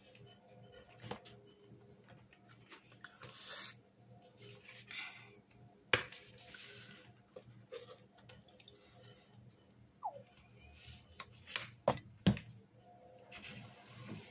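Powdered cleaner sprinkled onto wet sponges in a plastic tub, with soft hissing pours, then a squeeze bottle of liquid cleaner handled and squirted over them. Several sharp clicks and taps, the loudest about midway and a quick cluster near the end.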